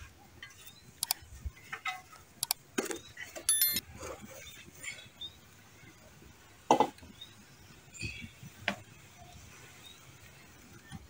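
Scattered clinks and knocks of an aluminium cooking pot and utensils being stirred and handled, the loudest knock a little past halfway through.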